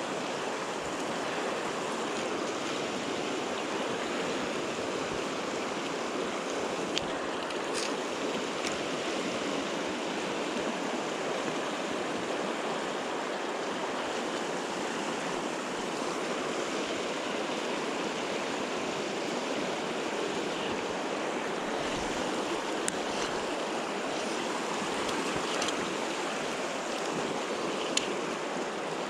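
Mountain river water rushing steadily, with a few faint clicks.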